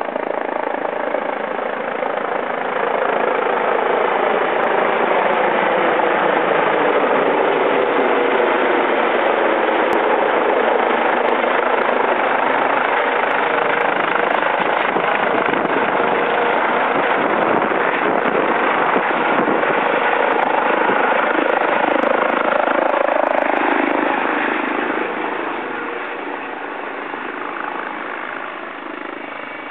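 Medical helicopter's rotor blades and turbine running loudly as it descends to land. The sound grows as it comes in close, then drops off over the last few seconds as it settles on the pad with the rotor still turning.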